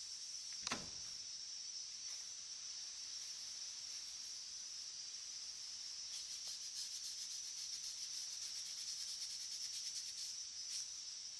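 Insects chirping steadily in a high, fast-pulsing trill, with a single knock about a second in.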